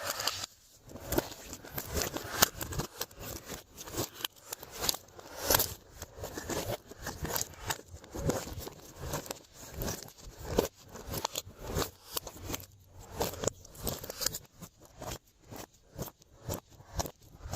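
Glossy slime being worked by hand, giving off dense, irregular sticky clicks and crackles.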